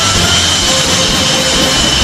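F/A-18 Hornet jet engines running on the flight line: a steady, loud rush of jet noise with a high whine.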